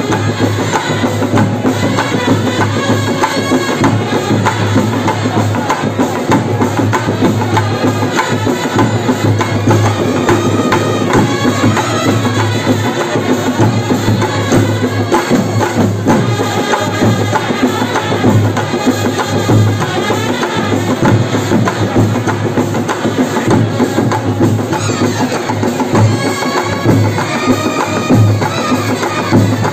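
Kerala band set playing: brass horns carrying a melody over a steady, driving beat of drums and cymbals.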